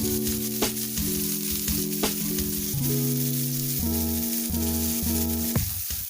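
Bison burger patties and onions sizzling in a frying pan, with steady hissing throughout. Background music with changing notes plays over it.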